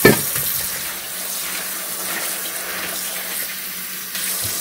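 Kitchen tap running steadily into a stainless steel sink filled with water and collard greens, with a single knock right at the start.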